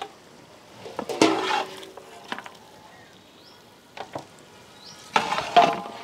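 Mutton pieces in spiced masala being stirred with a metal spatula in a frying pan, over a low steady sizzle. There are two spells of scraping, about a second in and again near the end, with a few light clinks of metal on the pan between them.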